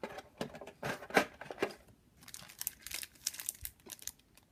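Cellophane shrink-wrap on two card decks crinkling and clicking as the decks are lifted out of a plastic box insert and handled: irregular short crackles, in two clusters with a lull between.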